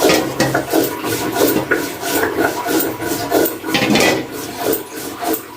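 Repeated rasping, rubbing strokes, several a second and irregular.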